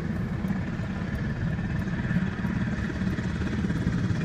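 UH-60 Black Hawk helicopter running on the ground as it taxis, a steady deep rotor and turbine noise with a faint steady whine above it.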